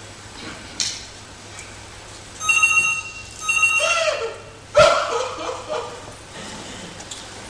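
A telephone rings twice in quick succession, short electronic rings of about half a second each, between two and four seconds in. Around the rings a woman lets out sudden sobbing cries, the loudest just before five seconds in.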